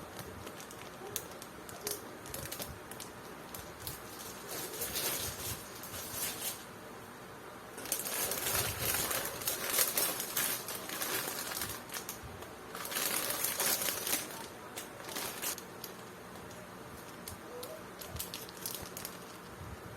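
Plastic packaging of a model kit being handled: bursts of rustling and crinkling, loudest in two spells around the middle, with small clicks and taps of parts between them.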